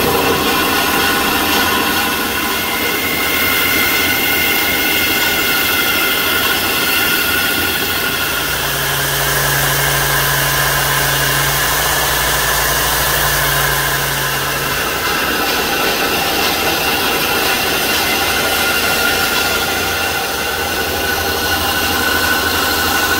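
Bandsaw running steadily as it cuts a block of wood. About a third of the way in, for some seven seconds, a belt sander grinds the wood with a lower hum, then the bandsaw cuts wood again.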